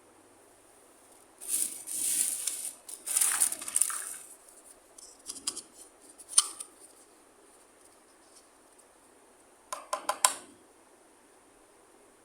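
Scissors cutting through plastic toy packaging in two long crinkly stretches, then a few sharp clicks and a quick rattle of small plastic pieces near the end.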